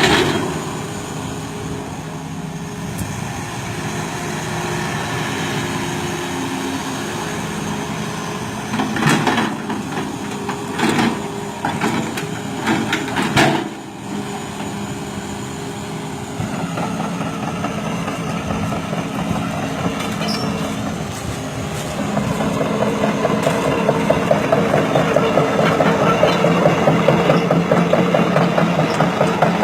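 Excavator's diesel engine running steadily, with a few short louder surges partway through; near the halfway-plus mark the engine gets louder and runs on with a fast, even pulsing under load.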